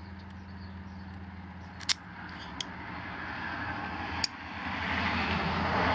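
A few sharp metallic clicks as a pair of Knipex pliers is handled, over a steady low hum and a background noise that slowly grows louder.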